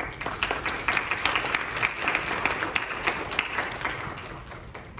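Small audience applauding: dense clapping that starts at once and dies away near the end.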